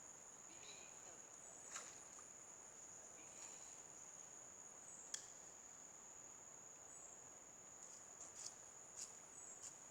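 Faint, steady high-pitched drone of an insect chorus, with a few short sharp clicks scattered through it.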